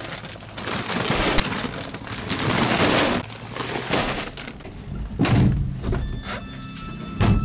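Irregular rustling and clattering noise with a few sharp knocks, about a second in and again around five and seven seconds; steady background music comes in about six seconds in.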